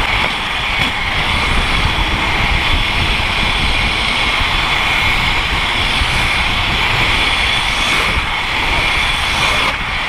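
Steady rush of wind over the microphone, mixed with the roll of inline-skate wheels on asphalt at downhill speed.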